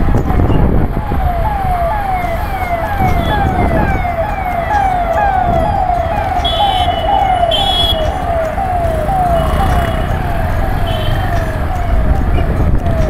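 Siren sounding in a fast, repeating falling yelp, about two to three sweeps a second, over the low rumble of the motorcycle and wind on the microphone. A few short high beeps, like horn toots, come in about halfway through.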